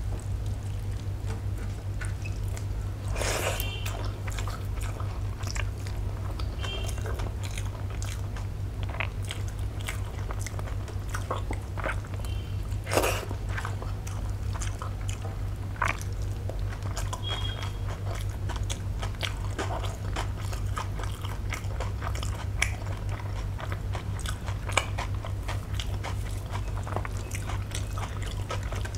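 Close-miked hand-eating of milk rice: fingers mixing and squishing wet rice on a steel plate, and moist chewing with scattered small clicks and smacks, over a steady low hum.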